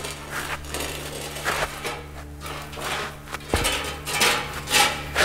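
Slow, uneven footsteps scuffing and shuffling on a gritty concrete floor, with one heavier thud about three and a half seconds in, over a steady low hum.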